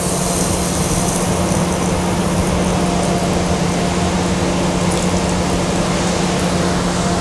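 OD cylindrical grinder running with a steady hum while coolant water sprays from the nozzle onto the spinning grinding wheel.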